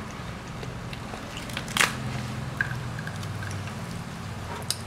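Handling and eating noises: a few small clicks and one short, sharp crackle a little under two seconds in, over a steady low hum.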